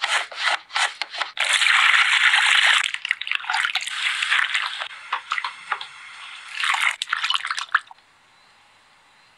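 A potato is sliced on a mandoline slicer: about half a dozen quick scraping strokes in the first second and a half. Then several seconds of water splashing and bubbling as the slices go into a pot of boiling water. It goes quiet near the end.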